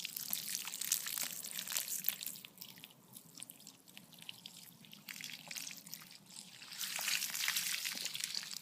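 Water being poured out and splattering on the ground in two spells, the first in the opening couple of seconds and the second, fuller one near the end.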